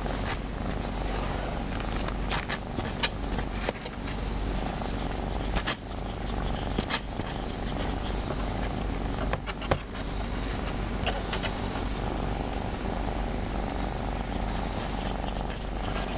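Domestic cat purring steadily while being stroked, with scattered light clicks and rustles from the hand handling its fur.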